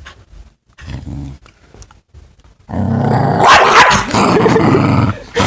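Corgi growling possessively: a short low growl about a second in, then a long, loud growl from about halfway through, sharpest near the middle.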